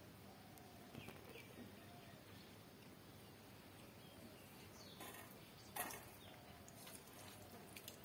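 Near silence with faint sounds of eating rice by hand from a steel plate: fingers mixing rice, chewing, and one sharp brief click a little before six seconds in.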